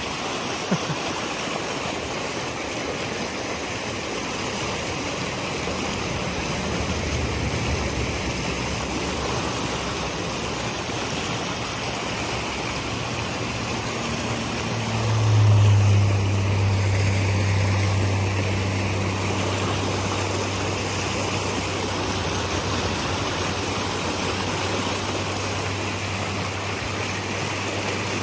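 Shallow creek water rushing over rocks. About halfway through, a low, steady engine hum comes in, loudest as it starts, and carries on under the water.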